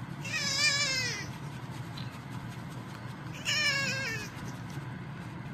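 A 24-day-old kitten mewing twice. Each is a thin, high cry about a second long that wavers and falls in pitch at its end.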